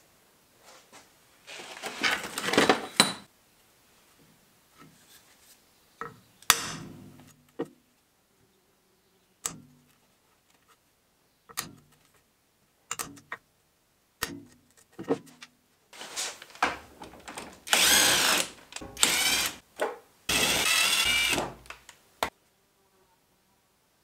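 Hammer tapping a punch through a cork gasket laid on a wooden board, single sharp knocks a second or two apart. Near the end a power tool runs in four short bursts, the loudest sound.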